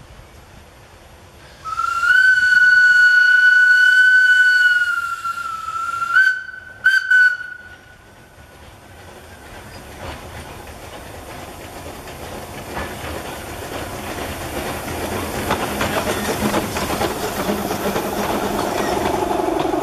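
Narrow-gauge locomotive whistle: one long blast of about four seconds, then two short toots. After it, the train's rumble and wheel clatter grow steadily louder as it draws near.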